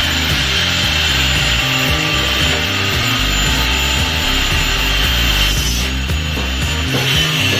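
A power tool grinding or sanding steadily, with a shift in its sound about five and a half seconds in, over background music with a steady bass line.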